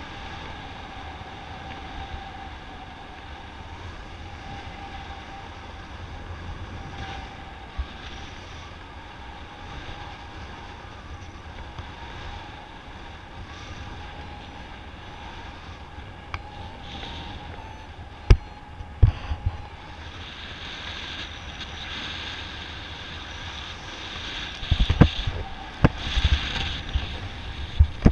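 Airflow rushing steadily over the microphone in paraglider flight, with a faint steady whistle. A few sharp knocks come about two-thirds of the way through, and near the end gusts buffet the microphone in a run of hard low thumps.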